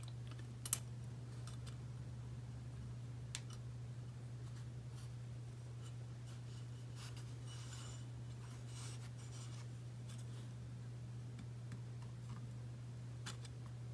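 Top compression ring being walked by hand into its groove on a Wiseco piston: faint metallic scratching and light clicks of the ring edges on the piston, with one sharper click about a second in, over a steady low hum.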